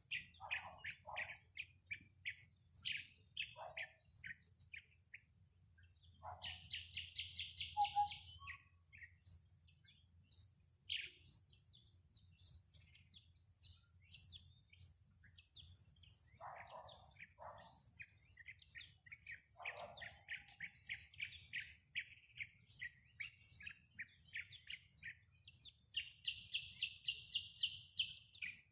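A chorus of several birds chirping and singing, with fast trills of rapidly repeated notes about six seconds in and again near the end, and lower short calls mixed in among the high chirps.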